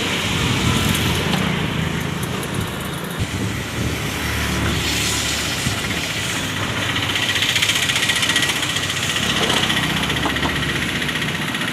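An engine running steadily, with a continuous mechanical rumble and hiss.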